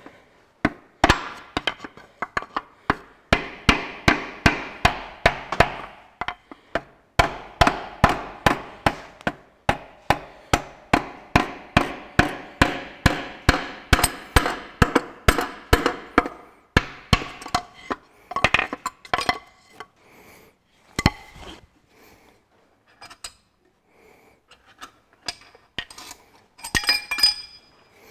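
A wooden hammer handle repeatedly knocking up against a connecting rod in a Ferguson 23C diesel engine's crankcase, driving the piston out of its cylinder bore. The sharp, ringing knocks come about three a second, pause briefly near six seconds, and thin to a few single knocks after about seventeen seconds, with some brighter metal clinks near the end.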